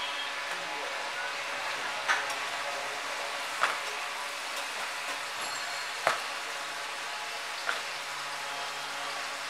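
Paratha dough being flung and slapped down on a steel counter as it is stretched thin: four sharp slaps, about one and a half to two and a half seconds apart, over a steady hiss.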